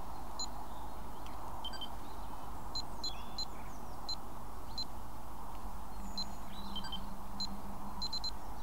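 Futaba T18SZ radio-control transmitter beeping at each button press while its dual rates are stepped down from 100 to 70. The beeps are short and high, about a dozen of them at uneven intervals.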